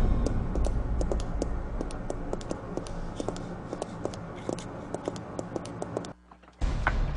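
Footsteps of two people in high heels clicking down stairs and across a hard basement floor, several quick, uneven steps a second. The sound drops out briefly about six seconds in.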